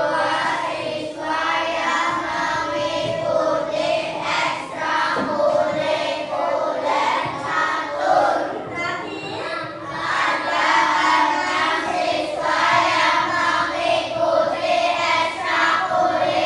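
A class of children singing together in unison, a loud continuous group song.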